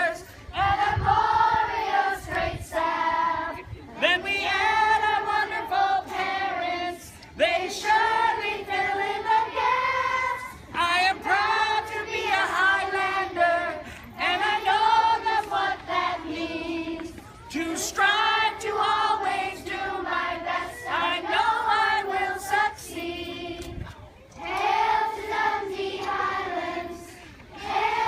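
A group of children singing together in short phrases.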